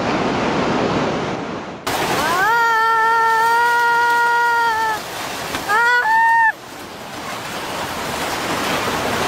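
Tsunami floodwater rushing through a town. After about two seconds a person's long, high shouted call rises and holds for about two and a half seconds, then two shorter shouts follow, before the rush of water builds again.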